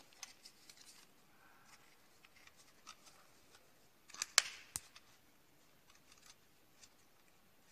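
Faint handling noise as a strap is fitted onto an exercise bike pedal: light rustling and small clicks, with a couple of sharper snaps about four to five seconds in.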